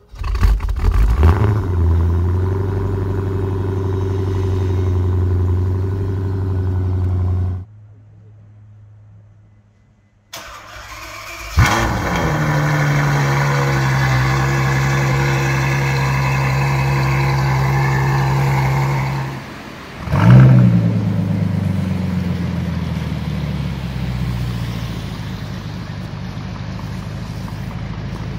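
Three cold starts in a row. A Dodge Charger's 6.4-litre V8 fires and holds a steady fast idle until a sudden cut. After a short quiet gap, a Ferrari 6.3-litre V12 cranks, catches with a sharp flare and settles into a high idle, and then a Bentley Continental GT's twin-turbo 6.0-litre W12 starts with a loud flare and eases down into a steady idle.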